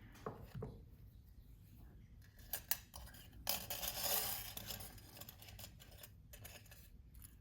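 Light metallic clicks and clinks of jewelry wire and small hand tools being handled on a work surface, with a brief scraping rustle about three and a half seconds in.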